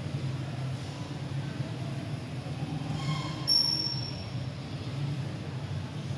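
A steady low rumble with a light hiss, broken about halfway through by one brief, sharp high-pitched squeal.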